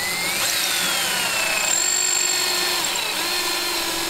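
Cordless drill boring pocket holes with a stepped bit through a pocket-hole jig into a wooden cabinet door frame. It runs continuously as a motor whine that dips in pitch twice and recovers.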